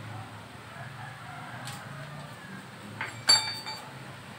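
Metal parts of a small angle grinder clinking as its disc is changed by hand: a light click, then a sharp metallic clink with a brief ring about three seconds in, and a few smaller clicks after it.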